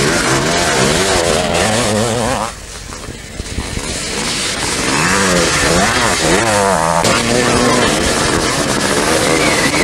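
500 cc motocross bikes racing past, their engines revving up and down in pitch. The sound drops away briefly about two and a half seconds in, then bikes rev past again.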